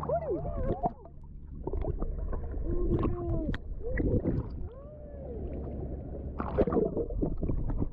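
Gurgling, bubbling water picked up by an action camera dipping in and out of shallow sea water, with many short warbling bubble tones and scattered clicks and splashes.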